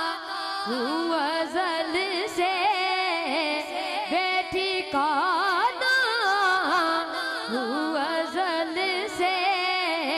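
A man singing a naat, drawing out a long wordless ornamented phrase with a wavering, bending pitch between the lines of the verse.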